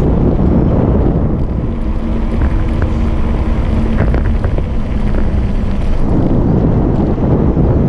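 Loud wind buffeting the camera microphone while a mountain bike rolls downhill on a concrete road, with tyre rumble underneath. A faint steady hum sits under it from about two to six seconds in.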